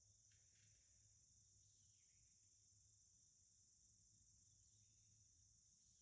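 Near silence with a faint, steady, high-pitched insect chorus and a couple of faint falling chirps.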